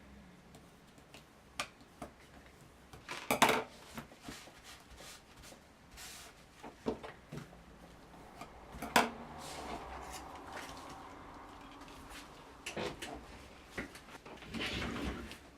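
Scattered taps and knocks of paper-craft materials and small tools being handled and set down on a tabletop, with a few sharper clicks about three and a half and nine seconds in.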